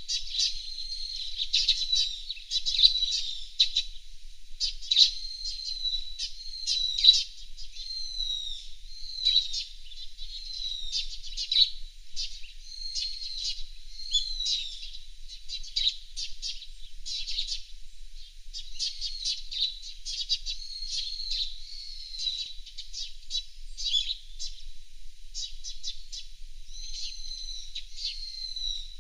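Fairywrens chirping and twittering without a break: a dense run of short, high calls, many sliding quickly down in pitch.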